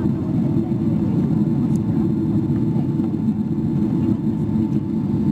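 Steady low rumble inside the cabin of a Boeing 777-300ER climbing out after takeoff: its GE90 jet engines and the airflow heard from a window seat over the wing.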